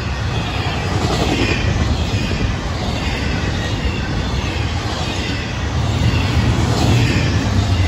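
Intermodal freight cars of a passing freight train rolling by: a steady rumble of steel wheels on the rails, getting a little louder about six seconds in.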